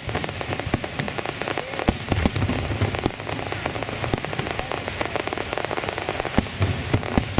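Fireworks display going off in quick succession: a dense stream of bangs and crackles, with heavier bangs about two seconds in and again near the end.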